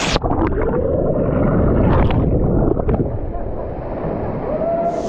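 Churning, gurgling water heard muffled and dull, with the treble gone as from a camera under water, plus a few knocks near the start and about two and three seconds in.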